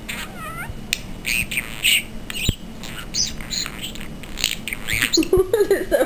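Blue budgerigar chattering: a run of short, high chirps and squawks, with lower, voice-like warbling near the end.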